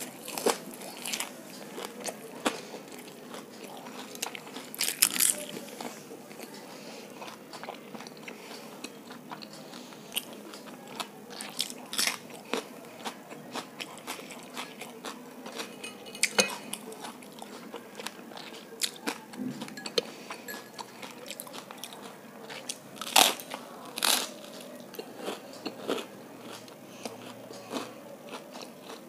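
Close-miked eating: wet chewing with irregular sharp crunches as fried gobi 65 (cauliflower fritters) is bitten and chewed. The loudest crunches come a few seconds apart, strongest near the end.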